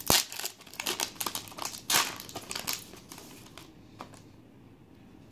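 Foil wrapper of a pack of football trading cards being torn open and crinkled by hand, a dense run of crackling for about three seconds before it goes quiet, with one small tick near the end.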